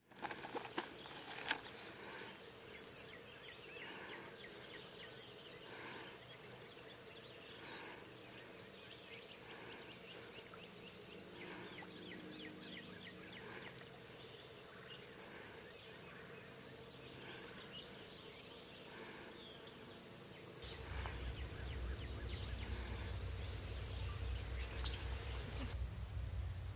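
Outdoor insect chorus: steady high buzzing with a very high trill that switches on and off every second or two, and small chirps scattered through it. About two-thirds of the way in a low rumble joins it.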